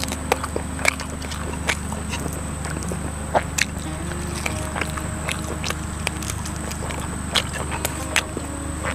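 Close-miked chewing and lip-smacking of someone eating with his fingers, heard as short irregular wet clicks, over soft background music with held tones.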